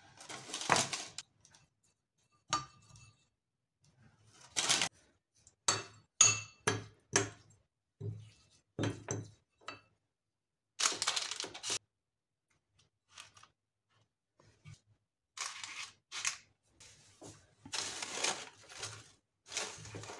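Metal spoon clinking and scraping against a ceramic bowl as dough balls are rolled in sesame seeds, in separate strokes with a quick run of taps about six seconds in.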